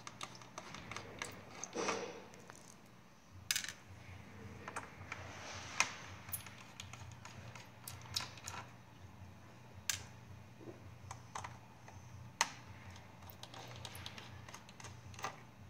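Scattered light clicks and taps of small screws, a screwdriver and plastic laptop case parts being handled during disassembly, coming at irregular intervals.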